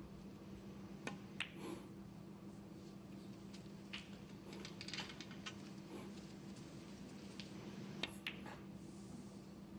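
Faint, scattered sharp clicks and taps over a steady low hum.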